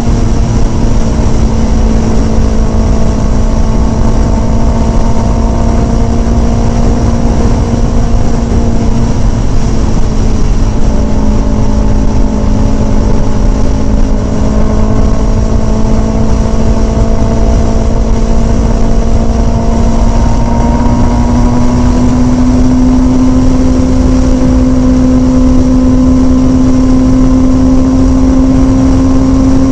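Kawasaki Ninja sport bike engine droning at a steady highway cruise, with wind rushing over the microphone. The engine note sags slightly, then rises a little about two-thirds of the way through as the bike picks up speed.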